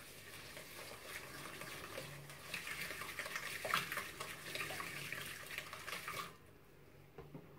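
Whisk beating oil and sugar in a glass bowl: a fast wet swishing with light ticks of the whisk against the glass, stopping about six seconds in.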